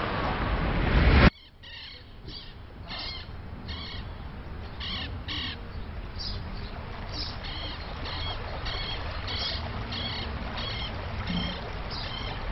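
A loud rushing noise cuts off abruptly about a second in. What follows is a quieter outdoor background with a bird giving short repeated calls, about two a second, running on to the end.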